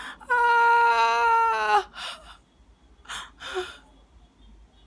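A woman crying out in pain from a dislocated neck: one long, high wail of about a second and a half that falls away at the end, followed by a few short sobbing breaths.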